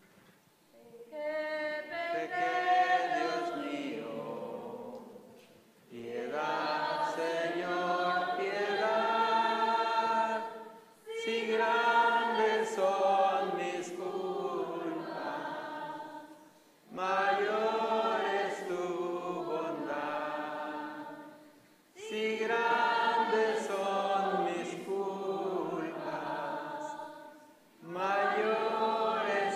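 Congregation singing a hymn together, in lines of about five seconds with short breaks between them.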